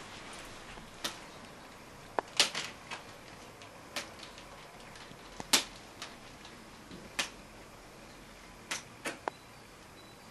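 About a dozen sharp clicks and knocks at irregular intervals over a low hiss, the loudest two about two and a half and five and a half seconds in.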